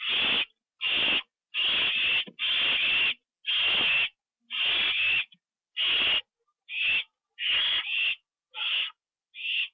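Barn owl giving harsh, hissing screech calls over and over, about one every second, each lasting around half a second.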